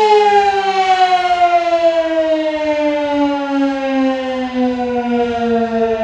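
Sentry Siren 16V1T-B outdoor warning siren winding down at the end of a short-alert test: its steady tone slides into a slow, continuous fall in pitch.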